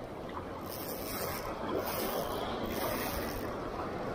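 Ocean surf and sea water sloshing close to the microphone just above the waves, coming in several surging hisses.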